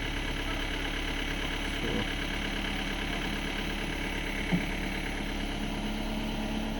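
Motor vehicle engine idling steadily, with one short knock about four and a half seconds in.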